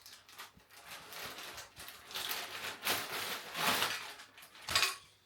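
Rustling and crinkling of paper as an instruction booklet is handled, opened and leafed through, with a few louder crackles near the end.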